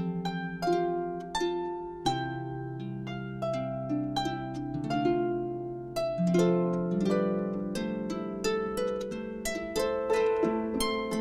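Instrumental background music of harp: a steady flow of plucked notes ringing and fading over deeper sustained notes.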